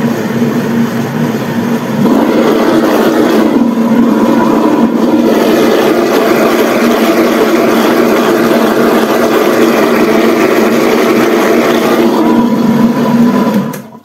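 Industrial blender with a stainless-steel jar running steadily, blending papaya with water. It gets louder about two seconds in and stops suddenly just before the end. It is running normally, the worn hexagonal coupling that drives the jar having been repaired.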